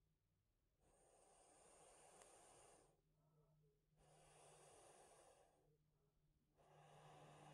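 Three long, faint rushes of breath about three seconds apart, with a faint low hum between them.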